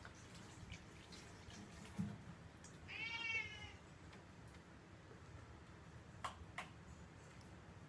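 A single short animal call with a rising-then-falling pitch, about three seconds in. A soft thump comes a second before it, and two sharp clicks come near the end.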